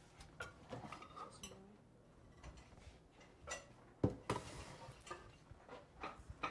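Kitchen utensils and cookware clinking and knocking: scattered light clicks and clacks, with one sharper knock about four seconds in.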